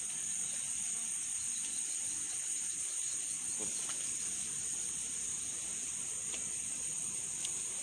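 A steady, high-pitched chorus of night insects, most likely crickets, with a few faint clicks.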